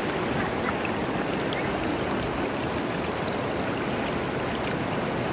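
Shallow river water running steadily over a rocky bed, an even rushing babble.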